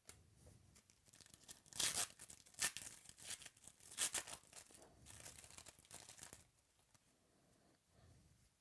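Trading card pack wrapper being torn open and crinkled by hand, in a run of crackly rips and rustles that stops about two-thirds of the way through.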